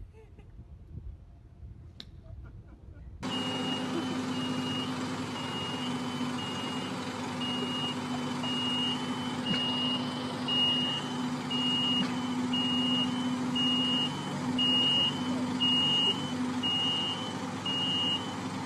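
Vehicle reversing alarm beeping evenly, about two beeps a second, over a steady low hum and background noise. It starts abruptly about three seconds in.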